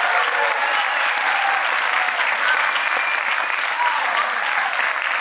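Audience applauding steadily, with a few voices heard over the clapping.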